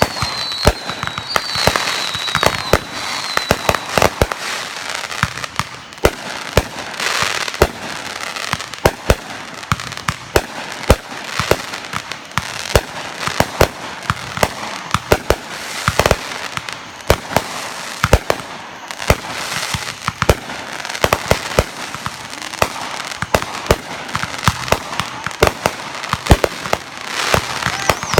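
A dense, continuous barrage of fireworks: many sharp bangs and pops in quick succession, with high whistles falling in pitch over the first few seconds.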